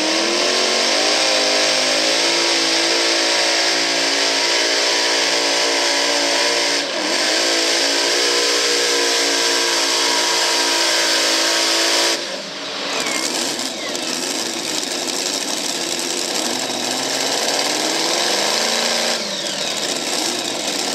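Modified pulling tractor's engine at full throttle, dragging the weight sled. The pitch climbs over the first couple of seconds and holds high, with a brief dip about seven seconds in. About twelve seconds in the throttle is cut as the pull ends, and the engine drops to a lower, uneven running.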